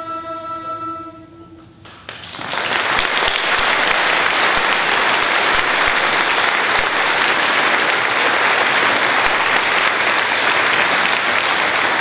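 The last held chord of a piece ends about a second in, and the audience breaks into loud, steady applause.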